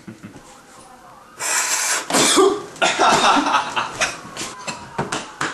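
A man snorts a line of cocaine with one loud sniff through the nose about a second and a half in, then coughs and sputters in short irregular bursts.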